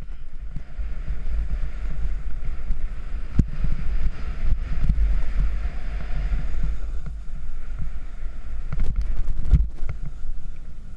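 Snowboard sliding and scraping over tracked snow on a run, a steady hiss that fades about two-thirds of the way through as the board slows to a stop, with wind buffeting the GoPro's microphone as a low rumble and a few knocks from bumps.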